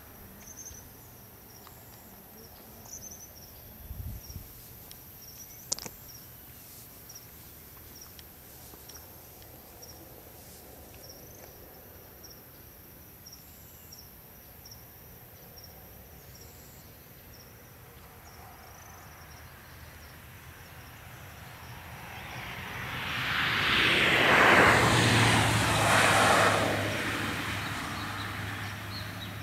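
Insects chirping steadily in a quiet open-air background. Then a vehicle passes on the road, its noise swelling to a peak about three-quarters of the way through and fading away.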